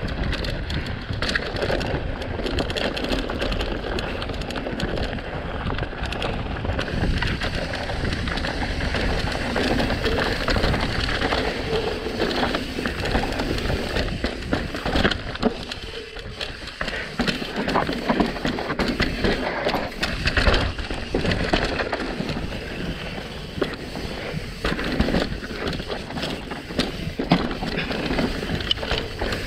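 Mountain bike descending a rough trail at speed: tyres crunching over dirt and rock, with the bike clattering and knocking over bumps throughout.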